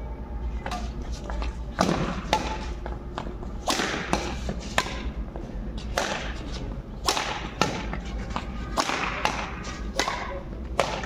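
Badminton rackets smacking a shuttlecock back and forth in a rally: a string of sharp, separate hits at irregular intervals, roughly one to two a second.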